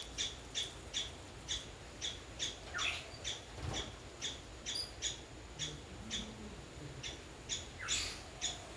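Bird calls: a short, high chirp repeated very evenly about twice a second, with a rising call sliding upward about three seconds in and again near the end.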